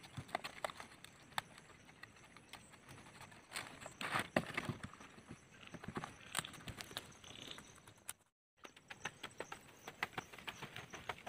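Large fresh leaves rustling and crinkling in irregular faint clicks as hands fold and tuck them into a leaf parcel. After a short break near the end, a wooden stick scrapes and taps through ash and embers as they are levelled.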